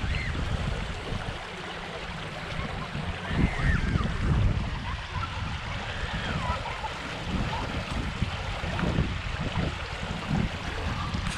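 Pond water running out through a freshly cut gap in its earthen bank, a steady rush of draining water.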